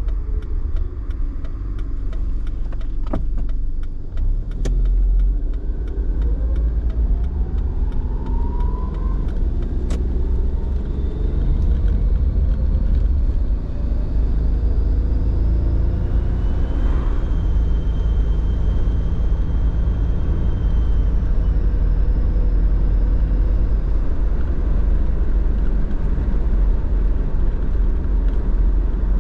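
Car driving along a road: a steady low rumble of engine and tyres, with the engine note rising in pitch as it speeds up from about four seconds in, then holding steady.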